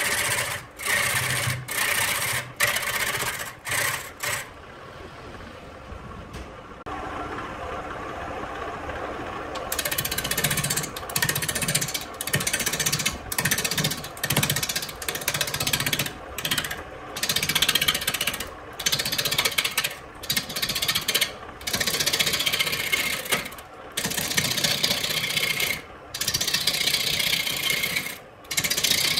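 Wood lathe running with a hand-held turning tool cutting into a spinning wooden blank: a loud, rough cutting noise broken by short gaps as the tool comes off the wood. About five seconds in the cutting eases off for several seconds, leaving a quieter run of the lathe, then it starts again.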